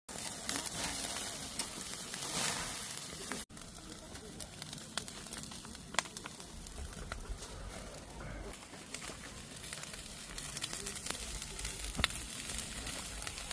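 Meat sizzling on a grill over a wood fire, with a few sharp pops and crackles from the burning wood now and then.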